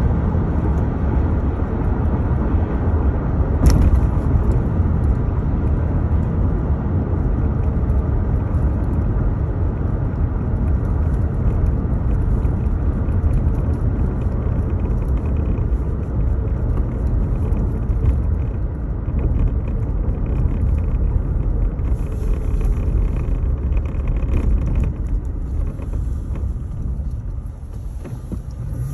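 Steady low road and engine rumble heard inside a car's cabin while driving at speed, with one sharp click about four seconds in. The rumble eases near the end.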